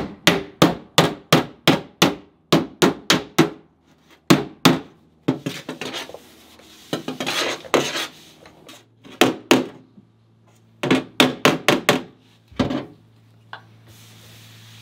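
Body hammer striking the steel rear quarter panel of a 1967 Porsche 911 against a dolly, in quick runs of sharp metal taps about three a second with short pauses between. A few seconds of rubbing come in the middle. This is hammer-and-dolly work smoothing the welded flare seam before filler goes on.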